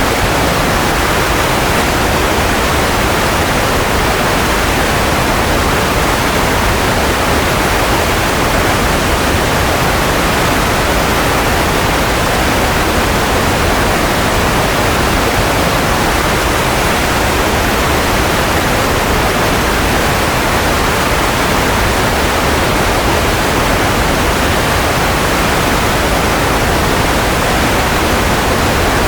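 Steady white noise for baby sleep: an even, unbroken hiss with no tone, rhythm or change in level.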